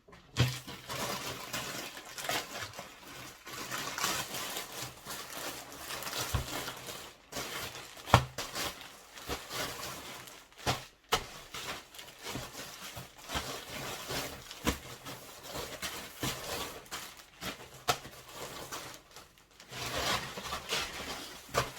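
Clothing packaging rustling and crinkling as items are unwrapped and handled, with sharp taps and knocks here and there, the loudest about eight seconds in.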